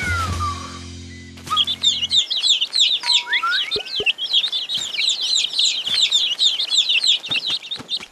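Cartoon baby birds cheeping in a dense, rapid, high-pitched chorus from about a second and a half in, the sound of hungry nestlings begging for food. It is preceded by a falling whistle and a low held musical chord.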